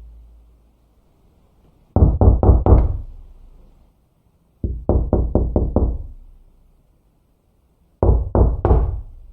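Knuckles knocking on a wooden door in three quick bursts of about four to six raps each, a couple of seconds apart. Each burst has a booming low thud and a short fading ring.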